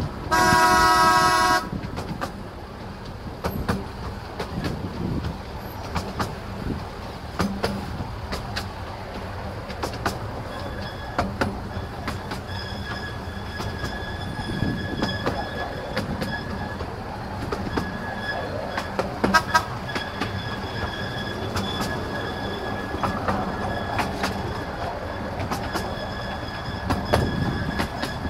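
Miniature diesel locomotive's horn sounding a chord-like toot, ending about a second and a half in. Then a miniature train running, heard from the carriage: steady rumble with wheels clicking over rail joints, and a faint high wheel squeal from about ten seconds in as it takes the curves.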